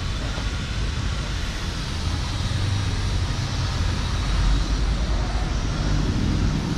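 Street traffic: a steady low engine rumble from passing vehicles, swelling about halfway through.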